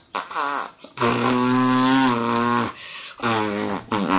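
A boy imitating a rattly old car engine with his mouth, a voiced rolled R trilled on the tongue: one long trill starting about a second in, then a shorter one.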